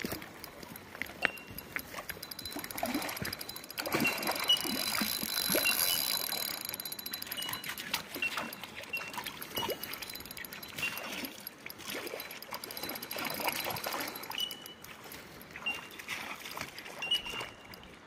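German wirehaired pointer wading through shallow water over stones, its legs making irregular small splashes and sloshing, busiest a few seconds in.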